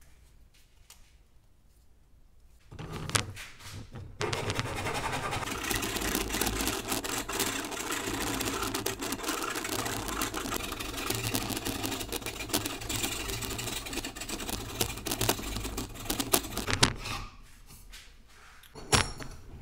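Round file rasping rapidly inside the hollow end of a dried bamboo pole, reaming out its bore, starting a few seconds in and stopping shortly before the end. A couple of sharp knocks follow near the end.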